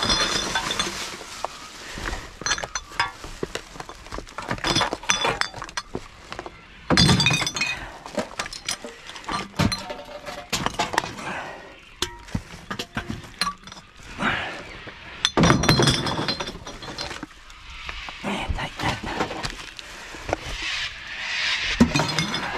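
Rubbish being rummaged through in a dumpster: a long run of clinks, knocks and rattles as glass and other hard containers are shifted and knock together, with a few louder clatters along the way.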